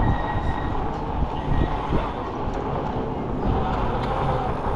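City street traffic noise heard from a moving e-bike, with wind rumbling on the microphone and a few faint steady tones in the background.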